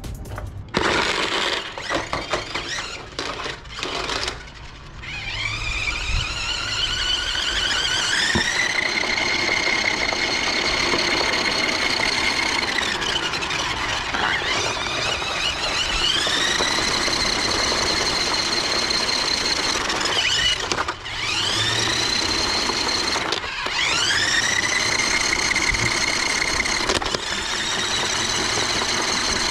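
Electric drive motors of a Tumble Bee RC stunt car whining as it drives: the high whine rises in pitch as the car speeds up, holds steady, then drops, about three times over. A few knocks and scrapes come in the first few seconds.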